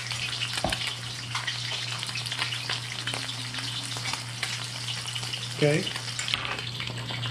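Cornmeal-coated bass fillets frying in hot oil in a stainless steel skillet: a steady sizzle with dense crackling and spattering pops.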